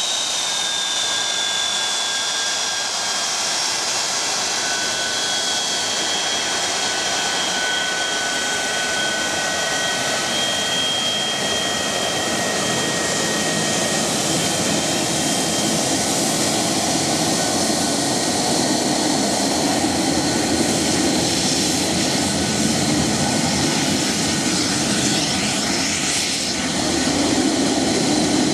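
Boeing 737-200's Pratt & Whitney JT8D turbofan engines running at taxi power: a loud steady jet noise with high whining tones that slide slightly down and fade out over the first half. The low exhaust rumble swells near the end as the tail turns toward the listener.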